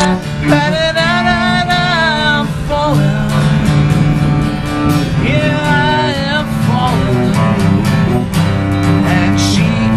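Cello and acoustic guitar playing a tune together, the cello bowed over the guitar's chords.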